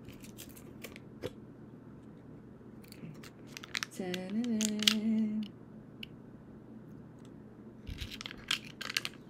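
Brown paper protective backing crackling in short bursts as it is peeled off a clear plaque, the crackles thickest near the end. A short hummed vocal sound about four seconds in.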